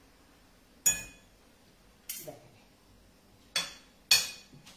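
A metal utensil clinking against a ceramic plate of spaghetti as the pasta is stirred: four sharp, separate clinks, the loudest near the end.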